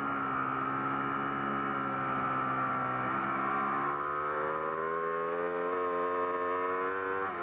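Superbike racing motorcycle engine heard from an onboard camera. The revs sink over the first few seconds, then climb steadily under acceleration for about four seconds.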